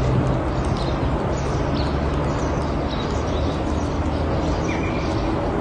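Steady outdoor background noise with a low hum, and a few short bird chirps scattered through it.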